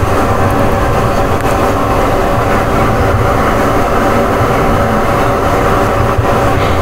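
A loud, steady mechanical drone with a constant hum of several held tones, unchanging throughout.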